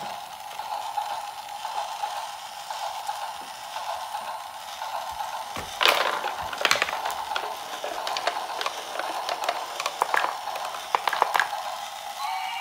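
Battery-powered toy train running along a wooden track with a steady whir. From about six seconds in, glass marbles clatter down the wooden zigzag marble run with sharp clicks and knocks against the wooden blocks, a second cluster coming near the end.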